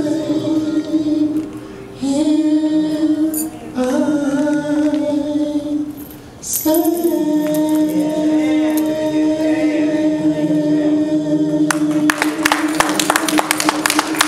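Singing in long held notes, a few short phrases and then one note held for several seconds. Hand clapping joins about twelve seconds in.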